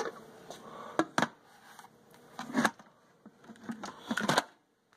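Lid of an electric pressure cooker being set onto the stainless pot and turned into place: a few light clicks and knocks, with a short cluster near the end.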